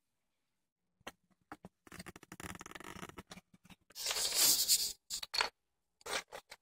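Wooden spools and plastic sticks of a Tinkertoy-style construction set clicking and rattling as they are handled and rummaged through in a cardboard canister. There are scattered clicks, a crackly rustle, and a louder rustling clatter about four seconds in.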